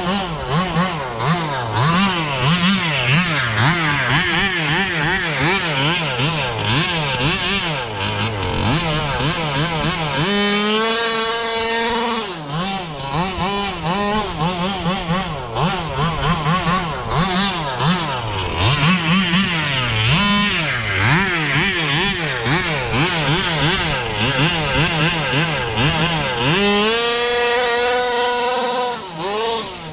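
Two-stroke gas engine of a 1/5 scale Baja RC buggy running hard, its revs swinging up and down over and over as the throttle is worked. Twice, about ten seconds in and again near the end, it holds a high steady pitch at full throttle for a couple of seconds.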